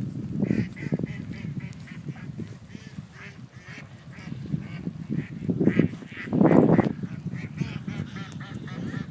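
A flock of geese honking on the water, with many short calls in quick succession. Wind buffets the microphone throughout, with strong gusts about six seconds in.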